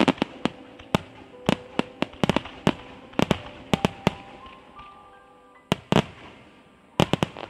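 Aerial firework shells bursting in quick succession: a rapid string of sharp bangs for about four seconds, a short lull, then a few more bangs and a close cluster near the end.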